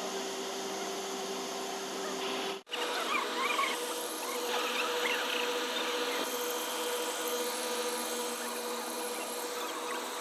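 Package air-conditioning unit running with a steady hum. About two and a half seconds in the sound drops out for an instant, and the hum comes back at a higher pitch. High, wavering chirps sound over it on and off.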